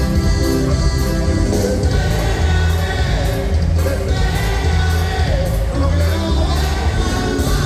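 A song with a singer over a band, steady beat and strong bass line.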